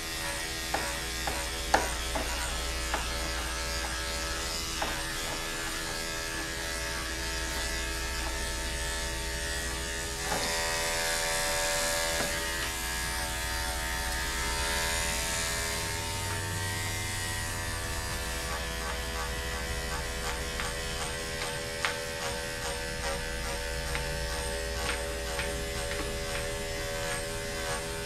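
Andis corded electric dog-grooming clipper running steadily with an even motor hum as its blade shears through the dog's coat. A few light clicks sound in the first seconds, and the cutting grows louder and hissier for a few seconds midway.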